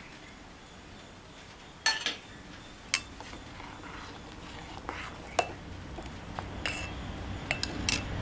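A steel ladle stirring a thin, milky payasam in a metal pot, clinking sharply against the pot about ten times at irregular intervals from about two seconds in.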